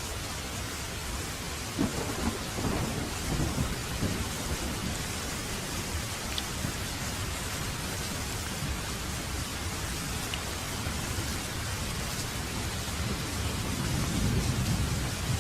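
Steady rain with low rolling thunder rumbles, one about two seconds in and another near the end.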